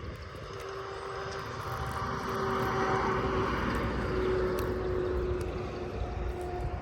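A propeller aircraft's engine droning overhead with a steady hum, growing louder to a peak about halfway through and then easing off slightly.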